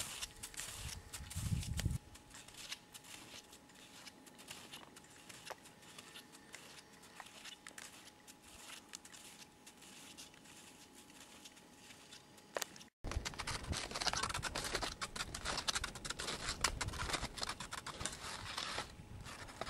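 Snowshoe footsteps crunching on snow, faint and sparse at first, then close and rapid after a sudden break about 13 seconds in.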